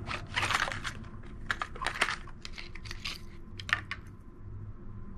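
Stiff plastic lure packaging being worked open by hand, giving irregular crackles and clicks that die down about four seconds in.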